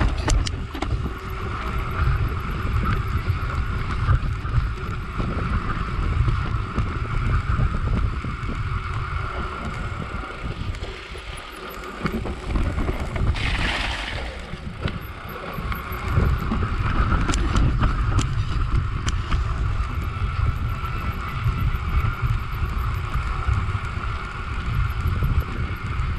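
Wind buffeting the microphone, mixed with the rumble and rattle of a mountain bike's tyres and frame on a rough grassy descent. There is a brief louder hiss about halfway through.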